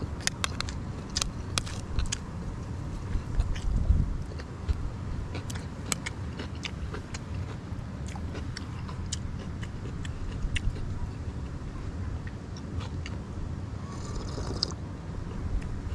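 Someone eating with a metal spoon from a plate: scattered sharp clicks and scrapes of the spoon and chewing sounds, over a steady low rumble.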